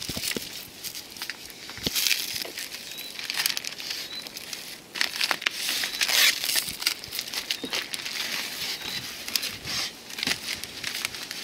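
Plastic packing stretch film being pulled off a handheld roll and wound around a bundle of newspapers, the film and paper crinkling and rustling in irregular bursts.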